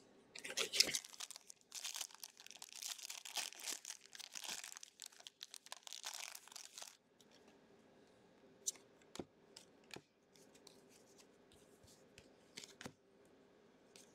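A 2022-23 Panini Chronicles Basketball pack wrapper is torn open and crinkled for about seven seconds. After that come a few faint clicks of cards being handled.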